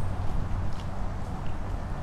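Wind buffeting the camera's microphone while it moves along on a riding electric unicycle: a steady low rumble and rush, with a few faint ticks.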